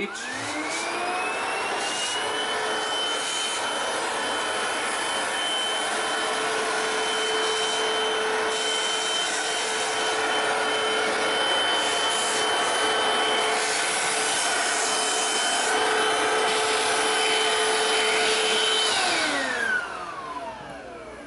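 Hoover CRUISE cordless stick vacuum switched on, its motor whine rising as it spins up, then running steadily with a rush of air. Near the end it is switched off and the whine falls away as the motor winds down.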